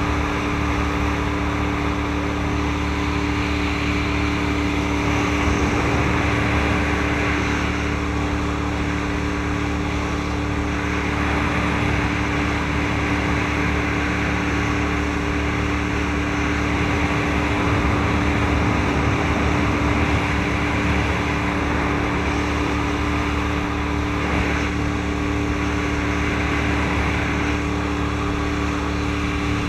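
EbbTide 2400 deck boat's engine running steadily under way, a constant drone over an even rush of water.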